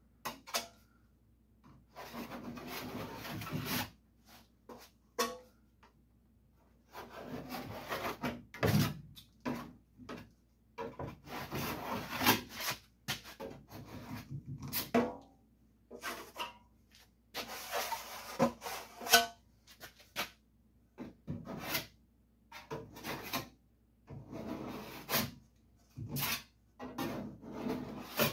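Wide trowel scraping body filler in repeated strokes of a second or two, with short pauses between.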